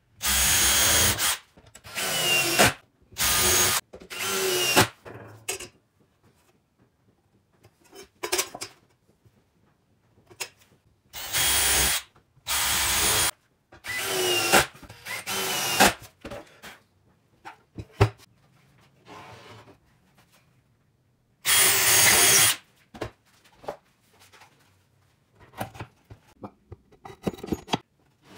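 DeWalt cordless drill boring holes into a wooden board, run in short bursts of about a second each, about nine in all, with small knocks and handling clicks between the runs.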